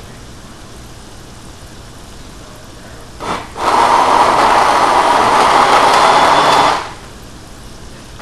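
Countertop blender running in a short pulse, blending an ice-cream-and-fruit milkshake: a brief blip about three seconds in, then a loud steady run of about three seconds that cuts off abruptly.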